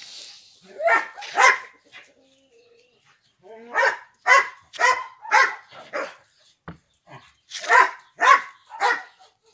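A dog barking in short runs, about two barks a second: two barks, then five, then three.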